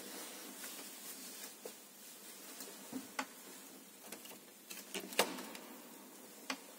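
Quiet room tone with scattered faint clicks and knocks, the loudest a knock about five seconds in; no organ is sounding.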